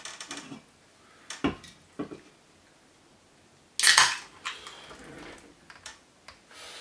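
A few light knocks from handling, then an aluminium beer can cracked open by its ring-pull about four seconds in: a sharp pop and hiss of escaping gas, trailing off in about a second of softer hiss.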